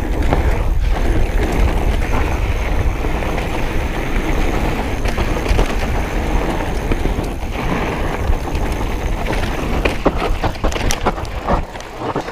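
Wind buffeting the microphone and tyres running over a dirt trail as a Giant Dirt-E hardtail e-bike is ridden at speed, with a cluster of sharp knocks and clatter from the bike around ten seconds in as it slows.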